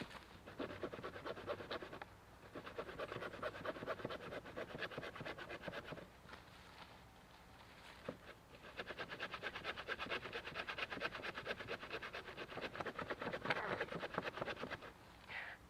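Large 30-inch hand saw cutting through a log in fast, rasping strokes. It stops briefly about two seconds in and again for about two seconds a little past the middle, then resumes.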